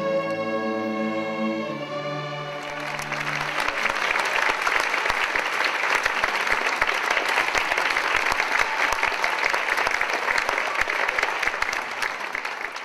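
A youth string orchestra of violins, violas, cellos and basses ends a piece on sustained chords for about the first three seconds; then the audience breaks into applause that runs on steadily.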